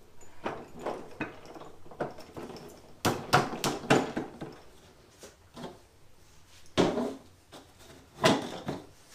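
Metal transmission parts clinking and knocking as the transmission case is worked down over the gear sets and shift forks. The knocks are irregular, with a busy cluster about three seconds in and two more sharp knocks later.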